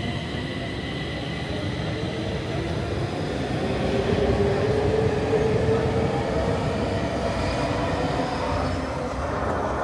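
Stockholm metro (tunnelbana) train pulling out of an underground station: continuous wheel and car rumble with an electric motor whine that rises in pitch as it accelerates. It is loudest about four to five seconds in, then eases off as the train goes into the tunnel.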